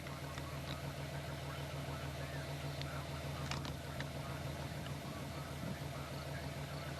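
Vehicle engine idling: a steady low hum, with a few faint clicks.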